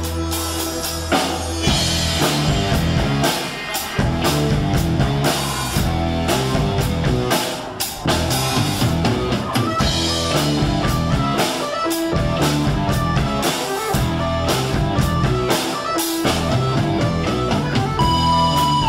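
Rock music with drums and guitar, a steady beat.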